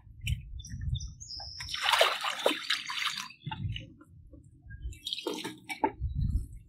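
Water splashing and sloshing in a plastic bucket as bunches of leafy root vegetables are rinsed in it by hand. The loudest splash comes about two seconds in and a smaller one near five seconds, with low dull bumps in between.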